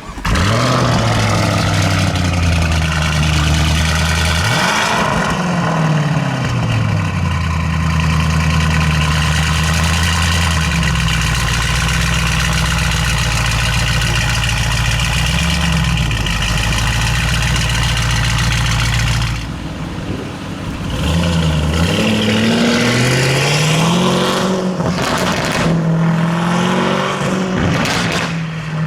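Lamborghini Urus's twin-turbo V8 through a Novitec aftermarket exhaust, revving: it comes in suddenly with a sharp rise in revs, holds steady revs broken by quick blips, drops back about twenty seconds in, then revs up again and gives a run of sharp exhaust crackles and pops near the end.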